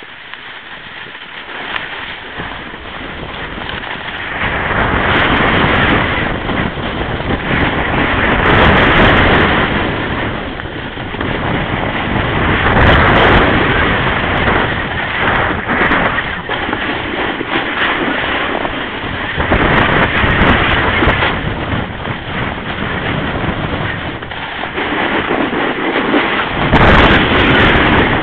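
Wind buffeting the microphone of a camera carried down a snowy slope, with the rushing scrape of edges over snow, the noise swelling and easing every few seconds.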